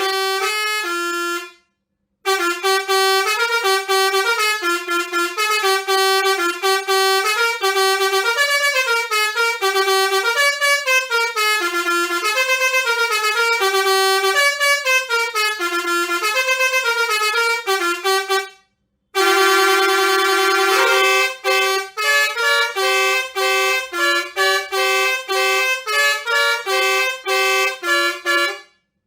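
Basuri six-trumpet musical air horn playing its melodies, loud, in a run of quick stepped notes. One tune breaks off about a second and a half in and a long one follows. After a short gap about two-thirds through, another tune starts with a held note, then choppy repeated blasts.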